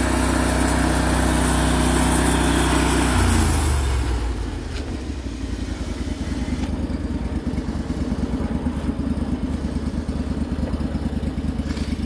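Engine of a portable band sawmill running fast with the blade spinning and a high hiss, then throttling down about four seconds in to an idle that beats in quick, even pulses.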